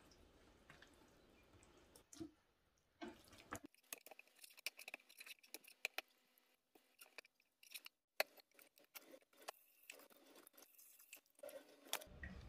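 Faint, irregular clicks and taps of a kitchen knife slicing raw beef on a plastic cutting board, coming thick from about three seconds in.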